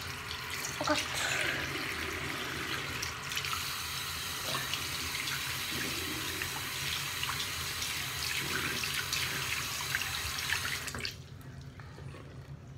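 Water running from a bathroom sink tap during hand washing, with small splashes. The tap is shut off near the end and the water stops suddenly.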